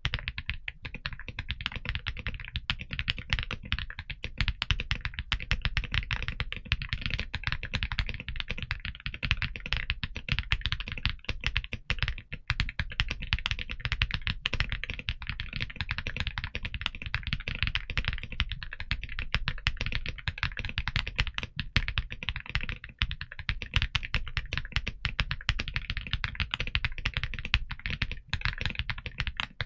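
Typing on an XVX M75 Lumina Core Ice Pro mechanical keyboard: a fast, continuous run of keystrokes.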